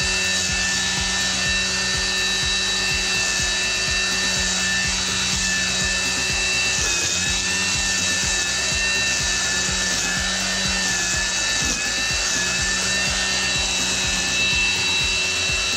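Kobalt 80-volt cordless string trimmer running, its electric motor giving a steady whine while the spinning line cuts grass and weeds. The pitch dips briefly twice, about 7 and 11 seconds in.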